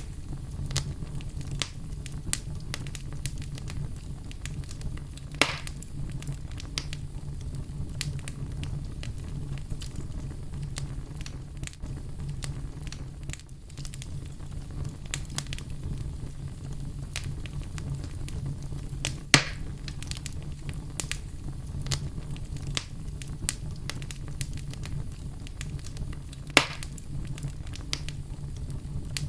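Wood fire burning in a fireplace: a steady low rumble of flames with constant small crackles and three louder sharp pops, at about five, nineteen and twenty-six seconds in.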